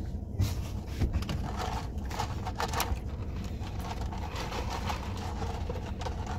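Steady low hum with scattered rustles and clicks, as of food and its wrapping being handled during a meal.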